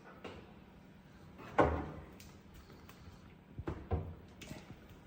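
A sharp knock about one and a half seconds in, then two lighter knocks close together near four seconds.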